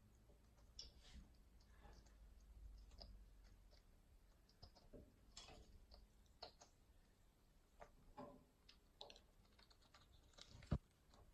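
Faint, irregular clicks and small cracks of Amazon parrots' beaks working at lamb chop bones, with one sharper knock near the end.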